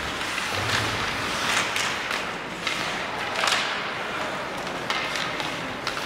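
Hockey play: skate blades scraping the ice in hissy bursts, with scattered sharp knocks of sticks and puck.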